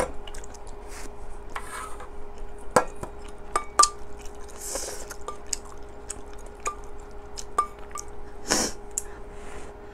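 Close-miked eating sounds: a metal spoon clicking against a stainless steel pot, with short slurps of hot kimchi stew every few seconds. A faint steady hum runs underneath.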